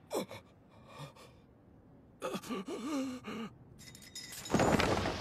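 A man's dubbed cartoon voice gasping sharply, then letting out a strained, pained groan. About four and a half seconds in, a loud blast-like impact sound effect hits and fades.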